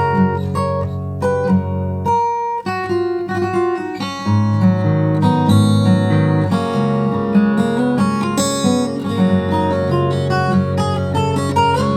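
Background music: acoustic guitar picked and strummed, with a brief drop about two and a half seconds in.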